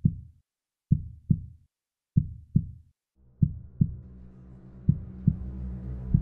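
Soundtrack sound design: pairs of deep bass thumps like a heartbeat, about one pair every second and a quarter. A low droning pad swells in under them from about halfway through.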